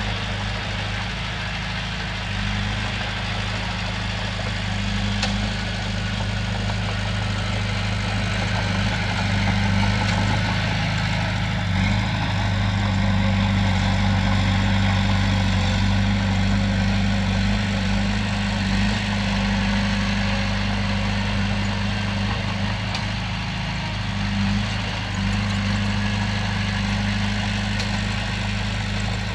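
Heavy diesel engine running steadily at an even speed, a little louder in the middle stretch.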